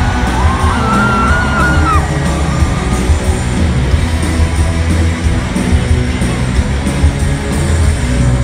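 Live rock band playing loud, with electric guitar, bass and drums, heard from within the audience with a heavy, boomy low end. A voice sings or yells out over the band for about the first two seconds.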